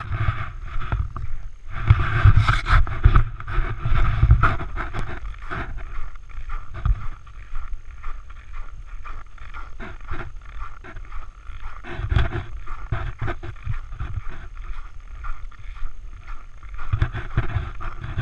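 Irregular rumbling and scraping from a GoPro Hero 3 travelling along a snow-packed road, heard through the camera housing. The noise is uneven, heaviest about two to five seconds in and again around twelve and seventeen seconds.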